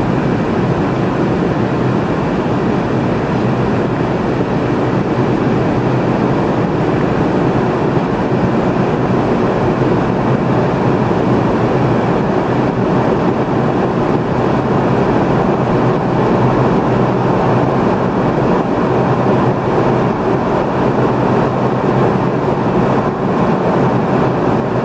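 Steady cabin noise of a McDonnell Douglas MD-82 airliner climbing after takeoff: the rush of airflow and its rear-mounted Pratt & Whitney JT8D turbofans running at climb power, an even, unbroken drone.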